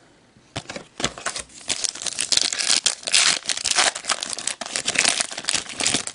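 Plastic trading-card pack wrapper being torn open and crinkled: an irregular crackling that starts about half a second in and keeps going for several seconds.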